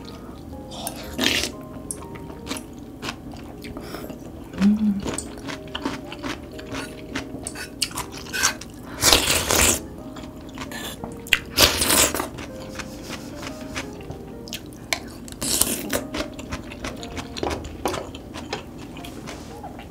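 Close-miked eating of loach soup and fried loach: chewing with crunches and clicks, and loud spoon slurps of soup about nine and twelve seconds in, with another near sixteen seconds. Soft background music runs underneath.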